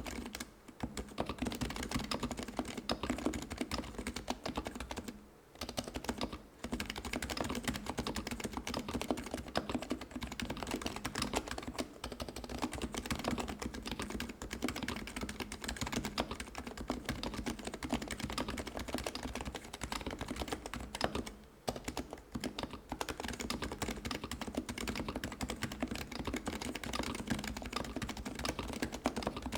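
Continuous fast typing on a Topre electro-capacitive keyboard: an HHKB Pro2 PCB in a Pro2.K case with 45 g Realforce R3 domes and fc660c and Realforce R3 keycaps. There are short pauses about five and six seconds in and again a little past twenty seconds.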